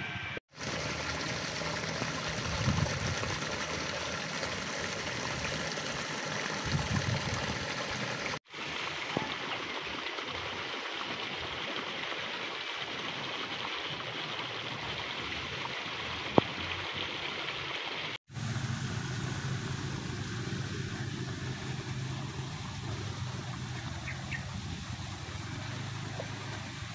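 Steady outdoor background noise, an even hiss with no clear source. It drops out briefly three times, about half a second in, about eight seconds in and about eighteen seconds in, where the recording cuts. There is one sharp click about sixteen seconds in.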